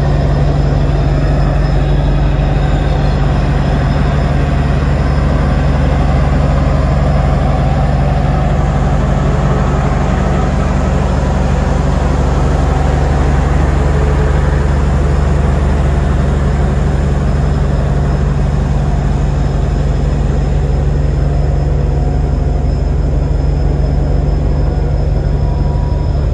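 Caltrain diesel locomotive's engine running steadily, a deep even drone that holds without change.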